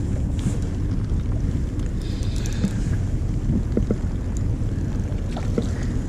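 Wind buffeting the camera microphone, a steady low rumble, with a few faint ticks.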